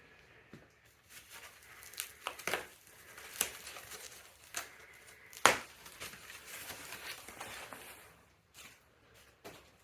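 Crinkling and rustling of wrapping being handled during assembly, with scattered clicks and knocks. The sharpest knock comes about five and a half seconds in.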